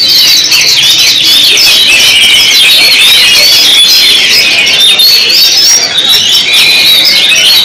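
Many caged contest songbirds singing at once: a dense, continuous tangle of rapid high chirps, trills and whistled glides from several birds overlapping.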